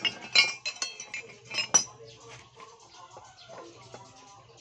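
Metal hand tools clinking and clattering against each other as they are picked through and handled, several sharp clinks in the first two seconds, the loudest near the start and just before the two-second mark.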